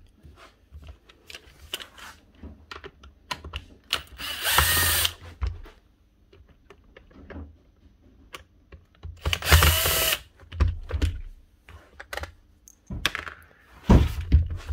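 Cordless drill-driver running twice, about a second each time, about four seconds in and again past halfway, backing out screws from the hedge trimmer's plastic housing. Small clicks and knocks of parts being handled come in between.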